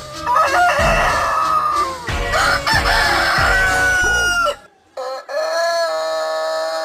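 Rooster crowing and clucking, harsh and loud, over deep repeated bass thumps. It cuts out for a moment near the five-second mark, then a long steady held tone sets in.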